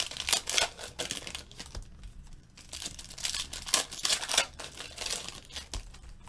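Trading-card pack wrappers crinkling and tearing as Panini Contenders football card packs are handled and opened by hand, in irregular crackles with a short lull about two seconds in.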